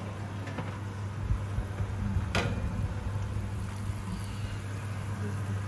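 A glass baking dish drawn out of an oven over the metal rack, with one sharp clink a little over two seconds in, against a steady low hum.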